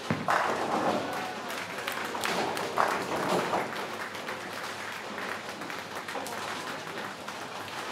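Tenpin bowling ball rolling down the lane and hitting the pins with a sharp crack about three seconds in, over the clatter and applause of a bowling centre.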